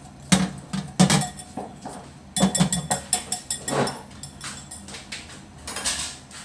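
Wire whisk clinking and rattling against a glass mixing bowl as pancake batter is beaten, a series of sharp strikes that thins out after about four seconds.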